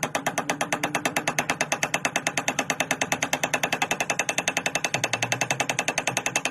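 Rapid, even mechanical clicking, about a dozen sharp clicks a second, steady in pace and loudness, like a ratchet or geared mechanism running.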